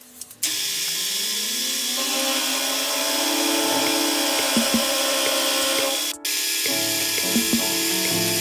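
Sieg X2 mini mill spindle spinning up with a rising whine, then running steadily as a four-flute end mill cuts into an aluminium block, with a few sharp ticks. The sound cuts out briefly about six seconds in, then the cutting carries on.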